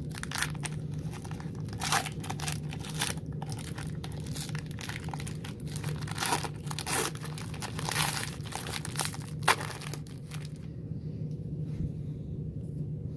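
A 2017-18 Upper Deck Ice trading-card pack wrapper being torn and crinkled open by hand, a wrapper hard to open. The crackling and tearing stop about ten seconds in, leaving a low steady hum.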